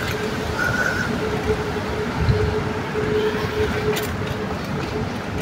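Steady rush of wind and street traffic noise while riding a bicycle through a road junction, with a steady hum running through it.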